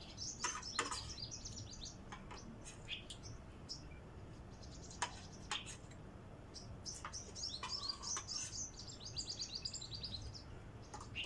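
Small birds chirping in quick twittering runs, with a few light clicks among them.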